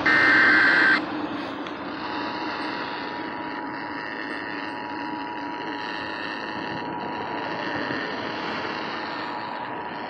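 Emergency Alert System monthly test heard through a portable FM radio's speaker. A burst of the digital header's data screech cuts off about a second in. After a short gap, the steady two-tone attention signal sounds for about eight seconds and stops near the end.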